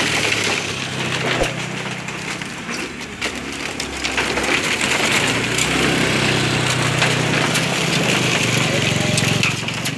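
Motor scooters riding off a ferry over a ramp of loose bamboo slats: the slats rattle and clatter irregularly under the wheels, over the low running of the scooters' small engines, which grows louder about four seconds in.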